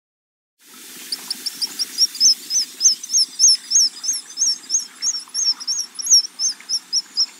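Black guillemot calling: a fast run of thin, high whistled notes, about four a second, over a low steady background noise. It starts about a second in.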